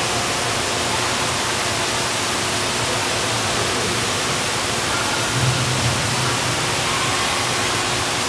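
Steady rushing hiss of an indoor swimming pool hall: moving water and the room's echo, unchanging in level.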